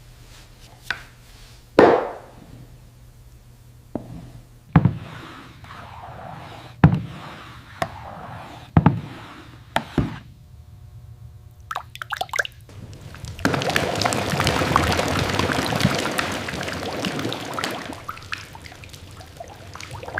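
Liquid dripping and plopping in separate drops and knocks, then a few seconds of steady pouring or splashing that fades out.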